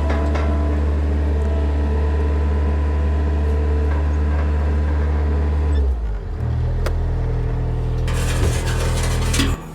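Farm machine engine running steadily, then revving higher about six seconds in and throttling back down near the end.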